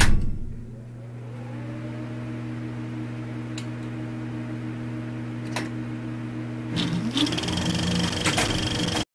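A steady whirring hum with a low tone and two higher tones above it, from the intro's soundtrack. A few sharp clicks fall through it, a short rising sweep comes about seven seconds in, and it cuts off abruptly at the end.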